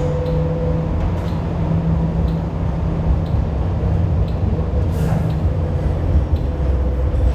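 Kawasaki-built light rail car in motion, heard from inside: a steady low rumble with a hum that fades out over the last couple of seconds, and a few faint clicks.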